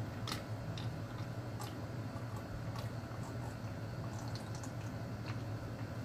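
Water being gulped from a large plastic jug in one long, unbroken drink: steady swallowing with small faint clicks.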